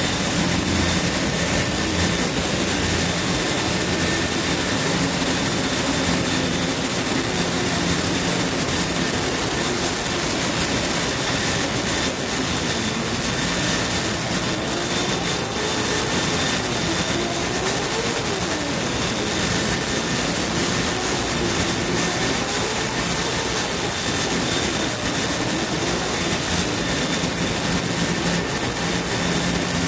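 Loud, steady machinery running in a boat's engine room, with a constant high-pitched whine over a low hum that wavers in pitch midway through.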